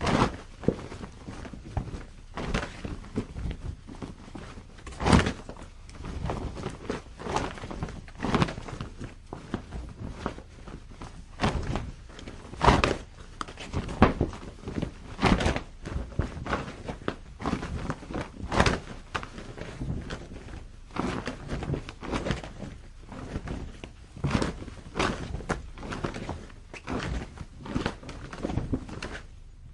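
Heavy cloth flapping on a clothesline in gusty wind, with irregular sharp snaps and slaps every second or so over a constant rustle, the strongest cracks about five, thirteen and nineteen seconds in.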